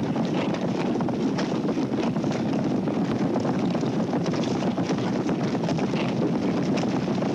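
Many horses galloping together on grass, their hoofbeats merging into a steady, dense drumming rumble.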